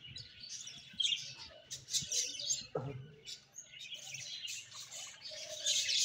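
A group of budgerigars chattering: a run of rapid high chirps and warbles, louder about a second in and again near the end.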